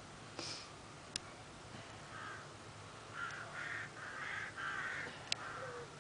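A bird calling with a run of about six harsh caws in quick succession in the second half, crow-like, with two sharp clicks, one a second in and one near the end.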